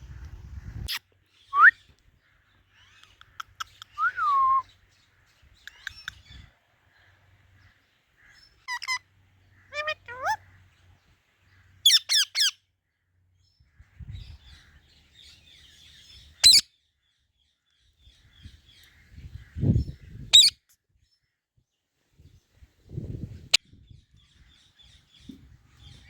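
Indian ringneck parrot calling in short, separate chirps and squawks with pauses between, some calls sliding down in pitch. A few low thumps come in the second half.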